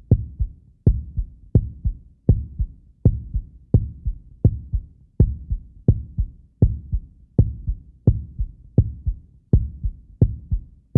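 Heartbeat sound effect: a steady, regular pulse of low thumps, each beat a double thump, at about 80 beats a minute.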